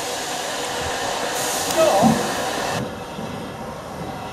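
Steady hiss of steam escaping from the 7F 2-8-0 steam locomotive No. 53808, with a short, louder squeal about two seconds in. The hiss cuts off abruptly a little before three seconds in, leaving a quieter low rumble.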